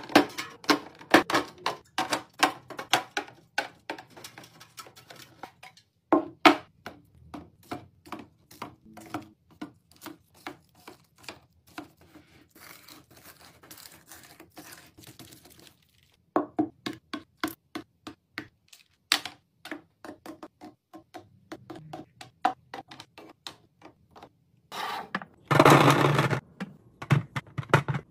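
A long run of light taps, clicks and knocks as drink cans and small cardboard juice boxes are set one by one into clear plastic fridge organisers. There is a short break about halfway through and a louder, longer rattle near the end.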